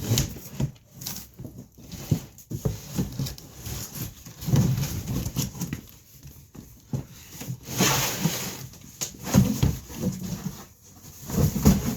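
Irregular knocks, scrapes and rustles of a boxed car refrigerator being unpacked: cardboard and packing material being pulled and handled.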